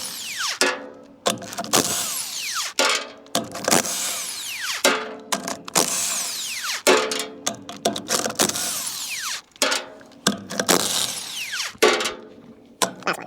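Impact wrench in repeated bursts of one to two seconds, several ending in a falling whine as it spins down. It is taking the lug nuts off a trailer wheel.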